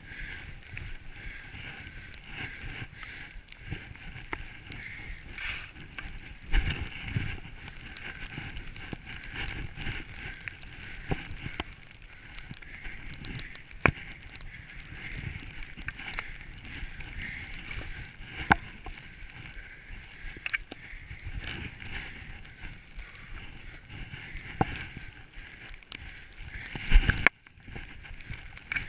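Skis sliding through deep powder snow, a steady hiss with scattered sharp knocks and a louder thump near the end.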